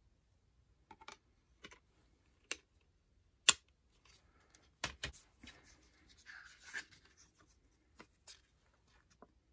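Plastic CD jewel case and disc being handled: a series of sharp clicks and taps, the loudest about three and a half seconds in, as the disc is pressed back onto the hub. Rustling of the paper booklet being slid out of the case partway through.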